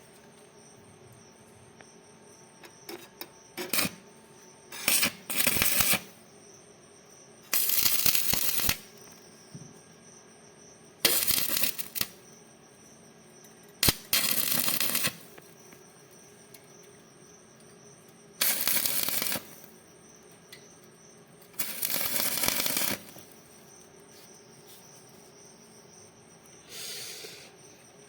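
Electric arc welding: about eight short bursts of crackling arc, each around a second long, struck one after another with pauses of a few seconds between. Crickets chirp faintly underneath.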